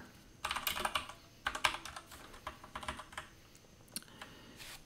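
Computer keyboard typing in short bursts of keystrokes with pauses between: a quick run of clicks about half a second in, another at about a second and a half, then scattered single keystrokes.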